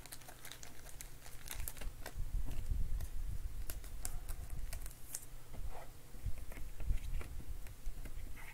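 Hands putting a sleeved baseball card into a clear rigid plastic card holder: the soft plastic sleeve crinkles, and the plastic gives a scatter of small clicks and taps.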